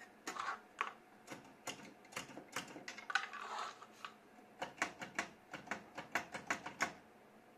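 Clicks and rattles from a coin-op style nut dispenser as its knob is turned and nuts drop into a paper cup. The clicks are irregular at first, then come in a quicker run of about five a second over the last few seconds.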